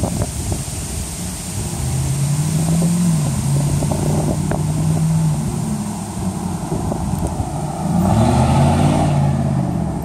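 2009 Ford F-150's 5.4-litre three-valve V8, fitted with an electric exhaust cutout, running and accelerating. Its pitch rises about two seconds in and holds, then drops. It climbs again, louder, around eight seconds in, before easing off.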